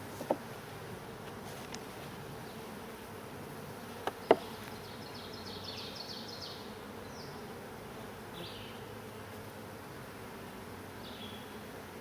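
Honeybees buzzing steadily around an open hive during a frame inspection. A small sharp knock comes just after the start and two louder knocks come about four seconds in, followed by a brief high chirping.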